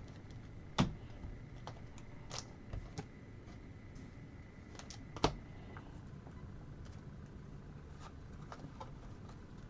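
Trading cards being handled and flipped through: scattered soft clicks and rustles, with two sharper taps about a second in and about five seconds in.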